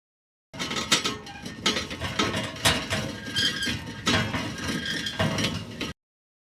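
The 'Vaporpinwheel' sound effect: a busy mechanical clattering with sharp clicks about once a second, which starts half a second in and cuts off abruptly near the end.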